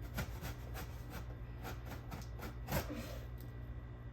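Hands working at a cardboard shipping box: a string of light taps, clicks and scrapes, with one louder knock about three quarters of the way through, over a low steady hum.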